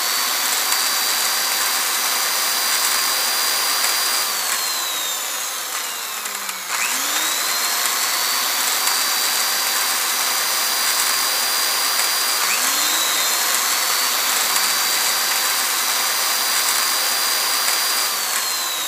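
Homemade drill made from a small DC motor with a chuck, running at high speed with a high whine over a steady hiss as the bit drills into a sheet. The whine falls away about four seconds in and winds back up about seven seconds in. It dips and recovers once more later, then falls away near the end.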